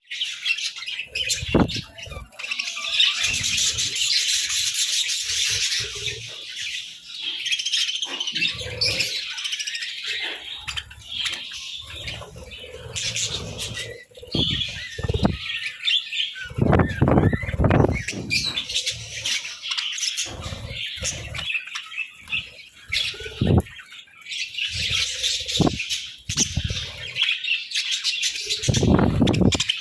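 A flock of budgerigars chattering and warbling continuously, with repeated low thumps and bursts of wing flapping.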